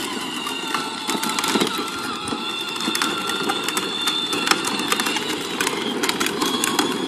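Battery-powered ride-on toy Jeep driving: its electric drive motors and gearbox whine steadily while the hard plastic wheels rumble and crackle over rough asphalt.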